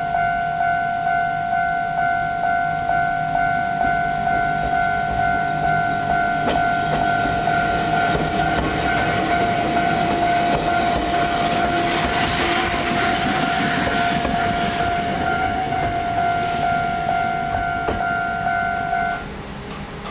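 Railway level-crossing alarm ringing with a steady, evenly repeated beat while a Choshi Electric Railway 2000-series train passes, its wheels rumbling and clicking over the rails, loudest around the middle. The crossing alarm cuts off suddenly near the end.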